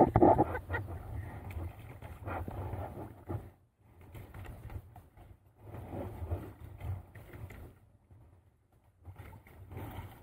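A Poodle–Newfoundland cross dog whining in drawn-out cries that come and go, with pauses in between.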